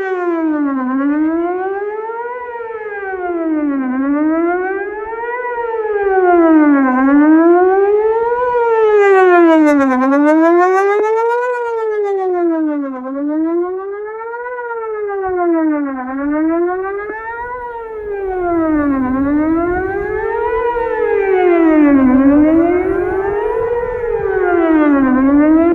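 Whelen 4008 electronic outdoor warning siren sounding its Best Possible Protection tone: a steady wail that rises and falls in pitch about every two seconds, during a monthly siren test.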